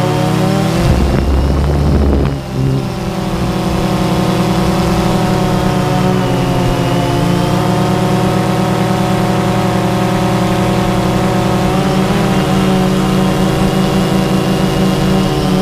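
DJI Phantom 2 quadcopter's motors and propellers, heard from the camera mounted on the drone: a loud, steady buzzing whine of several tones whose pitch dips and rises as the motors change speed. There is a brief low rumble of wind about a second in, and the sound dips for a moment shortly after.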